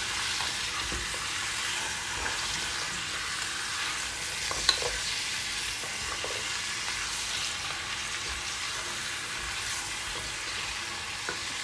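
Oxtail pieces searing in butter with chopped onion and carrot in a stone-coated frying pan, stirred with a silicone spatula. A steady frying sizzle with occasional clicks of the spatula against the pan, the sharpest about four and a half seconds in.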